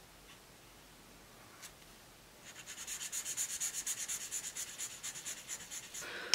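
Paint-marker tip scratching back and forth across paper in quick, even strokes, about six a second. The strokes start about two and a half seconds in, after a near-silent stretch.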